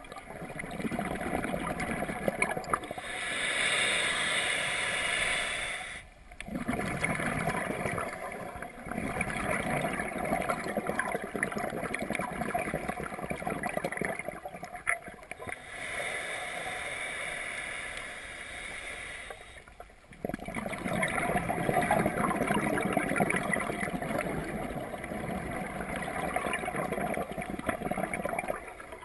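Scuba regulator breathing heard underwater: long rushes of bubbling exhaust lasting several seconds each, with brief pauses between breaths.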